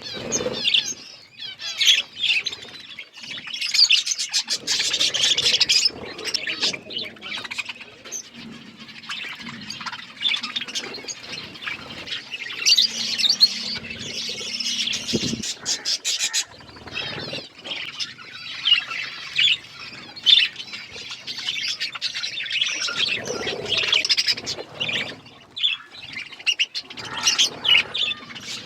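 A flock of budgerigars chirping and chattering continuously, many birds calling over one another, with busier bursts of high chirps.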